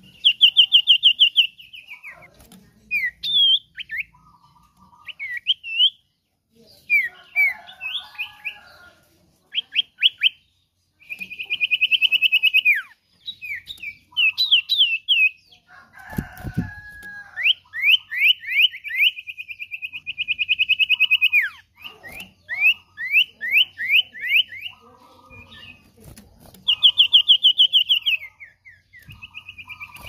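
Common iora (cipoh) singing vigorously: long rapid trills held near one pitch that drop at the end, alternating with quick series of rising whistled notes. A short thump about halfway through.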